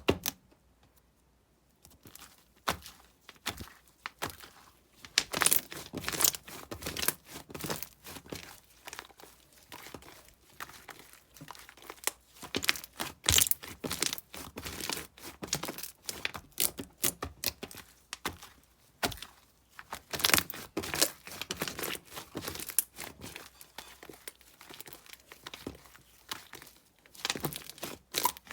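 Hands squeezing and stretching slime mixed with small plastic deform blocks, giving a dense run of crackling and clicking pops. The first couple of seconds are quiet before the crackling starts.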